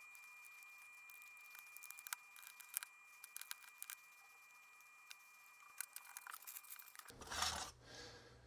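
Faint scattered clicks, taps and rustles of small plastic parts being handled. A little after seven seconds there is a short, louder rush of noise.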